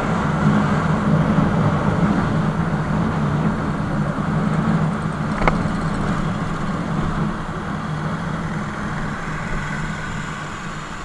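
Motorcycle engine running steadily while being ridden, under a steady rush of road and wind noise; it gets gradually quieter near the end as the bike slows. One sharp click about five and a half seconds in.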